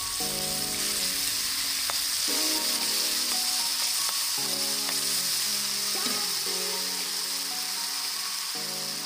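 Sliced onions, garlic and chili paste sizzling steadily in hot oil in a wok, with a few light clinks of a perforated metal ladle against the pan. Background music with held notes plays alongside.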